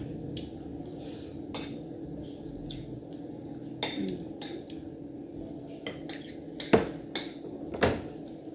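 Eating utensils clinking and knocking against a plate in scattered taps, the two loudest knocks coming about a second apart near the end.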